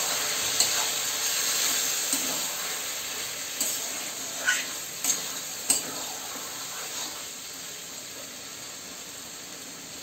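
Mutton and masala sizzling in a kadai just after a splash of water has gone in, while a metal spatula stirs and scrapes, clinking against the pan several times. The sizzle slowly dies down.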